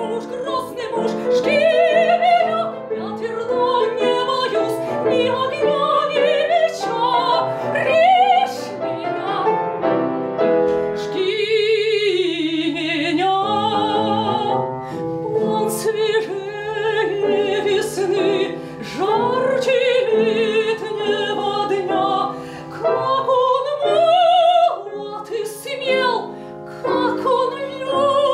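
A woman singing a Russian romance in a classical operatic voice with strong vibrato, accompanied by piano. About halfway through she holds one long note.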